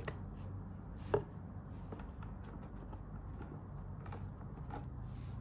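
Handling noises from unboxing sandals: a few soft clicks and taps over a low steady hum, with one sharper tap about a second in.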